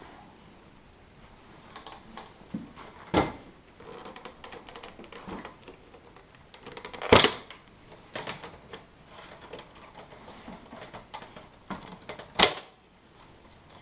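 Handling of a desktop computer case: small clicks and rattles, with three sharp knocks about three, seven and twelve seconds in, the middle one the loudest.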